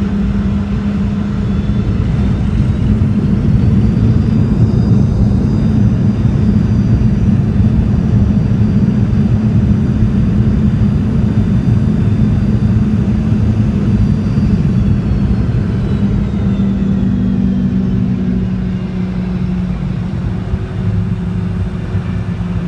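Boeing 717's rear-mounted Rolls-Royce BR715 turbofans heard inside the cabin over a steady low rumble as the aircraft rolls on the ground. The engine whine rises a few seconds in, holds, then winds back down at around fifteen to eighteen seconds.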